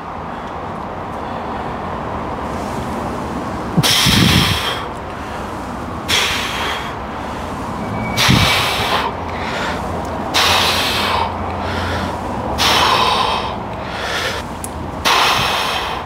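A man breathing hard and forcefully through barbell back squats: six loud breaths, one every two seconds or so, one for each rep, over a steady low hum.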